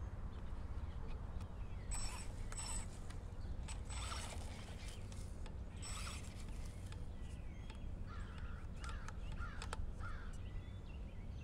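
Hosim 1:10 scale brushless RC truck running in several short bursts, with a mechanical whir from its drivetrain over a steady low rumble.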